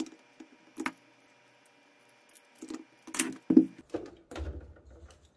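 Handling noise from hands working on a lithium battery pack and a stiff fiberglass insulating sheet: scattered small clicks and taps, with a few louder clacks about three seconds in.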